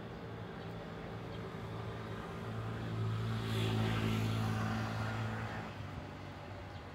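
A motor vehicle passing by: a low engine hum that swells to its loudest in the middle and fades away.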